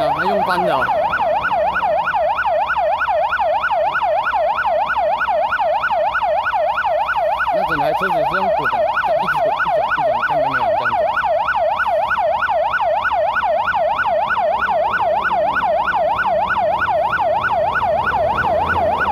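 Emergency vehicle siren sounding without a break, its pitch sweeping rapidly up and down about three times a second.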